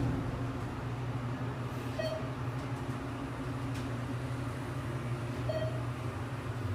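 Thyssenkrupp Endura elevator car travelling between floors with a steady low hum, and a short electronic beep twice, about every three and a half seconds, typical of a car's floor-passing tone.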